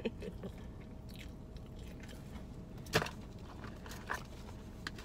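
Crispy fried fish batter crunching as the fish is handled, a few sharp crunches, the loudest about three seconds in and another a second later.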